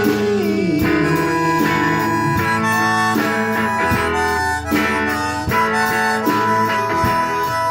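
Live band music: a harmonica plays a solo, some notes sliding in pitch, over strummed guitar.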